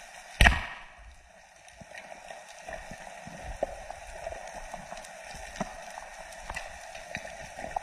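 Speargun fired underwater: one sharp, loud crack about half a second in, followed by steady underwater hiss with scattered faint clicks.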